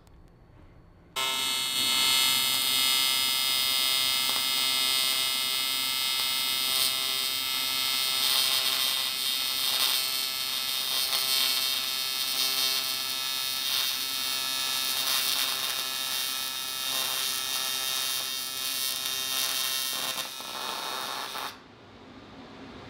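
TIG welding arc on aluminum, running as a steady AC buzz. It starts suddenly about a second in, drops out briefly near the end, then comes back and cuts off.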